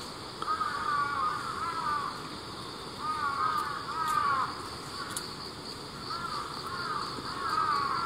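Crows cawing in short repeated bursts of falling calls, over a faint steady trilling of insects.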